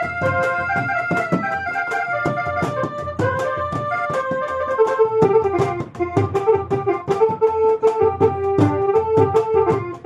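Electronic keyboard playing a ringtone-style melody in an organ voice over a steady drum beat. The tune moves to lower held notes about halfway through.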